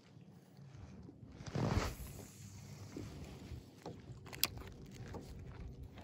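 Small waves lapping against a kayak hull, with a louder splash about a second and a half in and a sharp knock a little after the middle.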